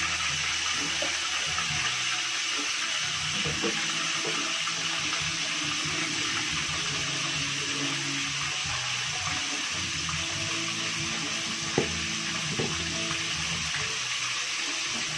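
Chicken pieces frying in hot oil in a pan on a gas burner: a steady sizzling hiss, with one sharp click about twelve seconds in.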